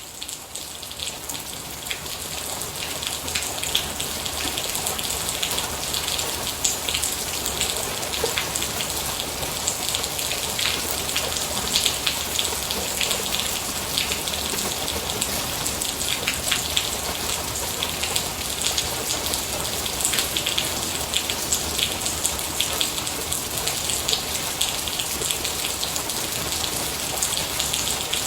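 Steady rain falling on a surface, with many separate drop ticks heard through the hiss. It fades in over the first two seconds, then holds an even level.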